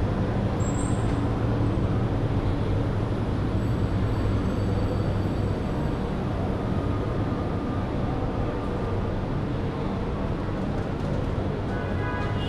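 Steady city street traffic: a continuous low rumble of engines and road noise with no single event standing out.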